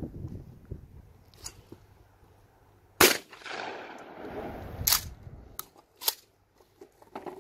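A Remington 870 pump-action shotgun fires once about three seconds in, and the report echoes for over a second. A few sharper, quieter clacks follow.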